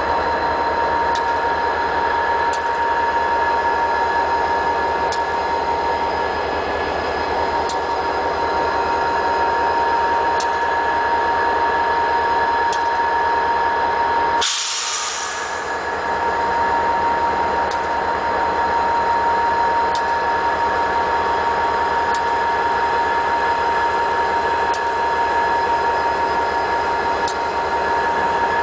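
CSX diesel locomotives running steadily, a constant engine rumble with a steady high-pitched whine over it. About halfway there is a hiss lasting about a second.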